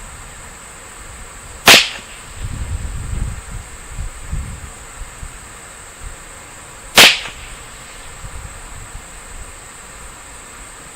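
Two shots from a Ruger 10/22 semi-automatic .22 LR rifle firing CCI standard-velocity rounds, about five seconds apart. Each is a sharp crack with a brief tail.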